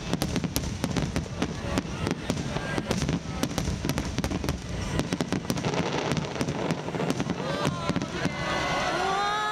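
Fireworks barrage: many shells bursting at once in rapid, overlapping bangs and crackles.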